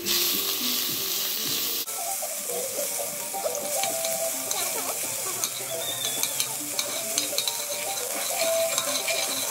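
Blended seasoning sizzling in hot oil in a metal pot, loudest for the first couple of seconds, then frying steadily while a spoon stirs it, with small clicks of the spoon against the pot.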